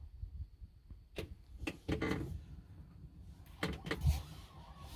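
Several short, irregular knocks and rubbing sounds, with the clearest cluster about two seconds in and another near four seconds.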